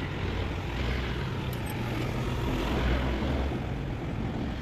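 A motor running steadily with a low, even drone, and a faint click about one and a half seconds in.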